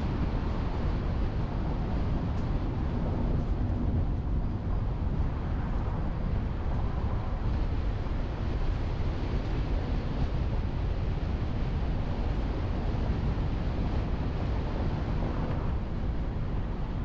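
A car driving, heard through a car-mounted camera: a steady low rumble of wind on the microphone mixed with road noise.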